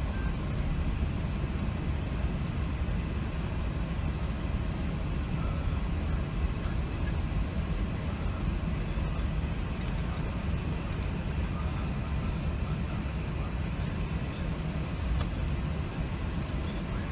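Steady low rumble inside the cabin of an Airbus A380 during takeoff, from the engines under takeoff power and the aircraft rolling down the runway.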